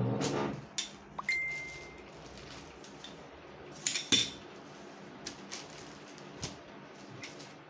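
Scattered clinks and taps of tableware, the loudest a pair of sharp clinks about four seconds in, with a brief pitched sound at the very start and a short steady high tone a little over a second in.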